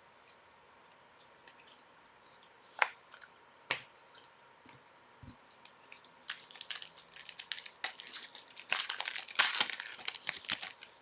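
Crinkling and tearing of plastic card packaging as hockey cards are unwrapped and handled, starting with a couple of sharp clicks and building into steady crackling from about six seconds in.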